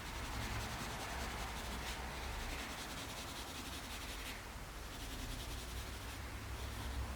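5B Tombow MONO 100 graphite pencil rubbing over printing paper in shading strokes, easing off briefly a little past halfway.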